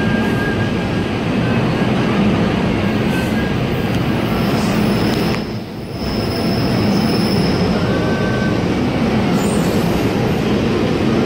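NJ Transit bilevel passenger coaches rolling past close by, a loud, steady rumble of wheels on rail. A faint high wheel squeal rides over it through the middle, where the noise also drops briefly.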